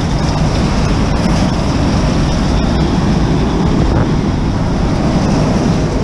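Electric commuter train passing close by: a loud, steady rush and rumble with a few sharp clicks, mixed with wind on the microphone.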